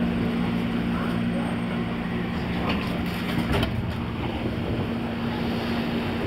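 Interior running noise of a JR 201 series armature-chopper electric train braking into a station, with a low steady hum and a few sharp clicks of wheels over rail joints. The hum drops away about halfway through as the train slows almost to a stop.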